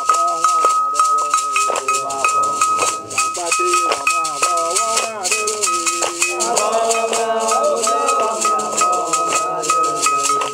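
Men singing a chant, with several voices joining together about six seconds in, over rhythmic hand claps, a shaken rattle and a struck metal bell keeping a steady beat of about three strokes a second.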